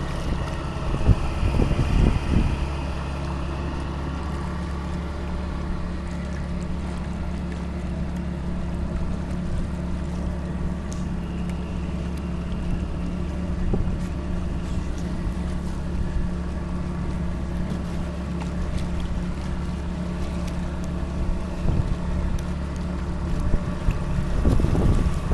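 A small boat's engine running steadily under way, with wind and water noise over it. There are a few louder thumps about a second or two in and again near the end.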